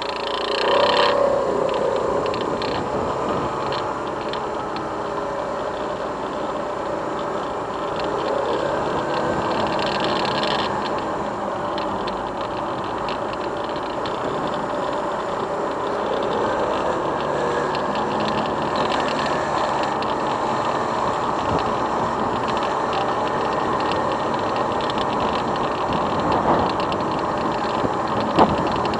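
Motorcycle engine running at low road speed, revving up about a second in and then pulling steadily, with a couple of small knocks near the end.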